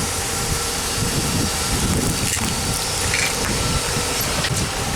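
A car being driven in reverse, a steady rumbling run with a constant hiss over it.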